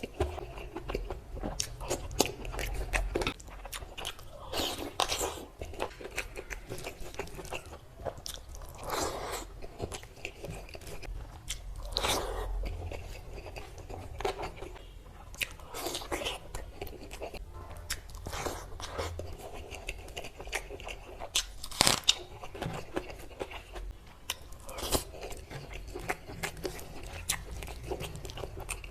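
Close-miked mukbang eating: large bites and chewing of crunchy food, with many sharp crunches and louder bites every few seconds.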